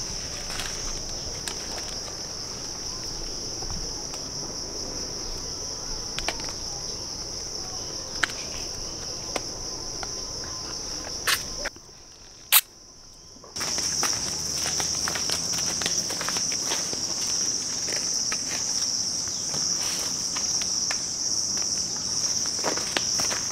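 Steady high-pitched drone of insects in forest, with scattered footstep crunches on dry leaf litter. About halfway the insect sound drops out for a couple of seconds and a single loud, sharp crunch is heard, as of a bite into a firm fruit.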